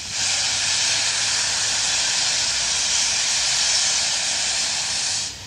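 Steam blowing off hard from one of two standing steam locomotives, BR Standard 4MT 2-6-4T 80079 and Ivatt 4MT 2-6-0 43106: a loud, steady hiss that starts abruptly and cuts off sharply after about five seconds, over a quieter continuous hiss of steam.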